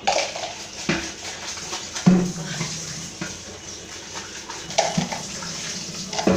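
A person whimpering and sniffling, several short moaning cries at irregular moments, in distress from the burn of very spicy noodles.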